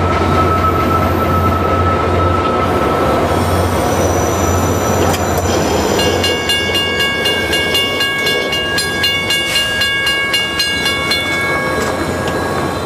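A train rolling past with a steady low rumble. About halfway through, its wheels start squealing in several high, steady tones over a rhythmic clatter of wheels on rail joints.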